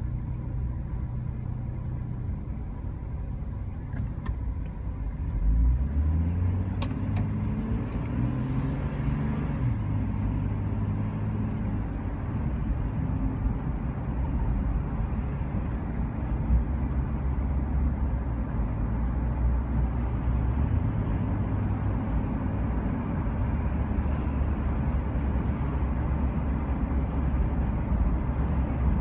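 Car engine running with low road rumble while driving; about six seconds in it gets louder and the engine pitch climbs and shifts in steps, then settles to a steady drone.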